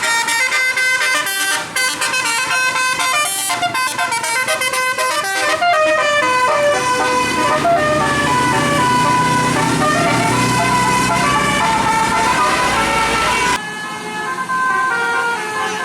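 Bus 'telolet basuri' multi-tone air horn playing a quick melody of stepping notes, with the bus engine running underneath midway. The sound cuts off abruptly near the end and a quieter horn melody carries on.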